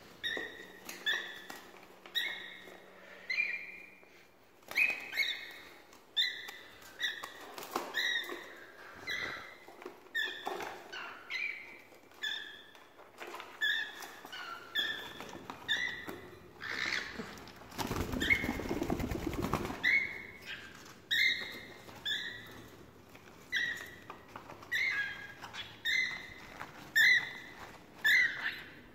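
Cockatiels calling with short, repeated chirps, roughly one a second, some slightly rising. A two-second burst of rustling noise comes about two-thirds of the way in.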